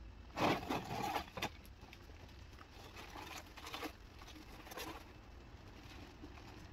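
Rustling and scraping of old roofing debris and a plastic trash bag as debris is picked up and bagged by hand, loudest in a noisy rush about half a second in, then lighter scattered rustles and clicks.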